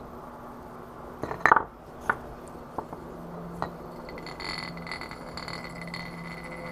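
Wooden spinning top clicking and clinking against a hard surface, with a sharp cluster of clicks about a second and a half in and single clicks after. From about three seconds in, a faint steady hum runs on.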